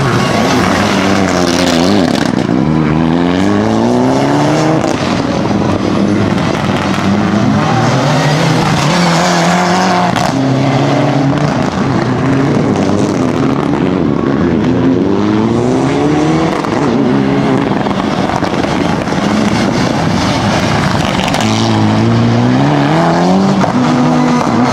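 Mitsubishi Lancer Evo IX rally car's turbocharged 2.0-litre four-cylinder engine under hard acceleration. It revs up through the gears several times, its pitch climbing and dropping back at each shift.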